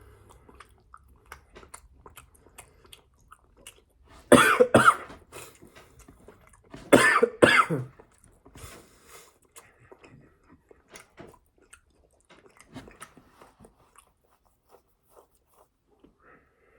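A person chewing food close to the microphone, with small wet mouth clicks throughout. Two loud coughs or throat-clearings break in, about four and seven seconds in.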